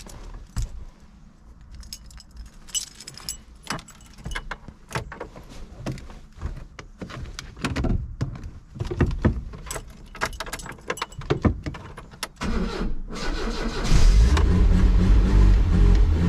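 Keys jangling and clicking at the ignition inside a Renault 20 TL, then from about twelve seconds in the starter cranks briefly and the cold four-cylinder engine catches almost at once, running loudly to the end.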